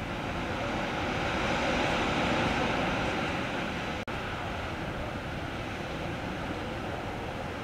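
Wind and sea surf rushing steadily, swelling a little a couple of seconds in and breaking off for an instant about four seconds in.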